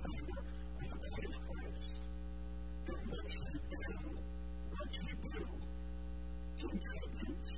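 Steady electrical mains hum with a stack of evenly spaced overtones in the audio feed. Faint brief sounds rise over it about every two seconds.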